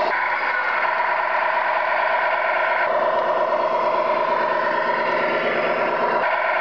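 Tamiya 1/16 Knight Hauler RC tractor truck running with a steady engine-like hum made of several held tones. Its pitch and mix shift abruptly about three seconds in and again near the end.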